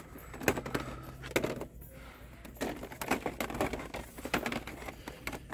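Hot Wheels Monster Trucks blister packs, plastic bubbles on card, being handled on store display pegs: irregular sharp clicks and clatters, thickest in the second half.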